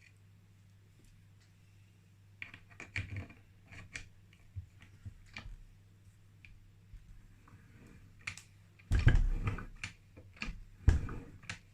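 Yamaha YZ80 two-stroke engine turned over slowly by its kickstart on the bench, its freshly fitted piston and barrel not yet bolted down: irregular clicks and light knocks from the kickstart and crank, starting about two seconds in, with two louder thumps about nine and eleven seconds in. It turns over smoothly.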